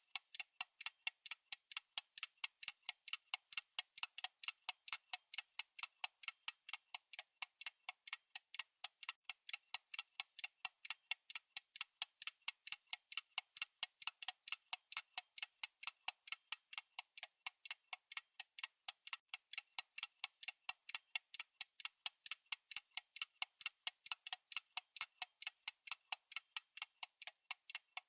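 Clock-style ticking sound effect of a countdown timer: light, high, even ticks, several a second, keeping a steady rhythm.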